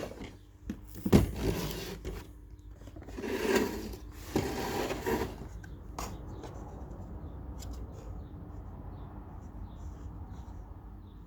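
Rubbing and knocking as the heat lamp unit is handled, then a sharp click about six seconds in followed by a steady low hum.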